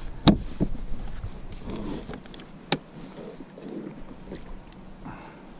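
Knocks and clicks of gear being handled on a fishing kayak: a sharp knock just after the start and another about halfway through, with fainter ticks between. Light wind rumbles on the microphone over the first half.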